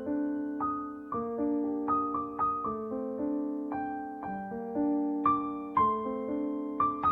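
Background music: a soft piano melody, notes struck about twice a second and left to ring.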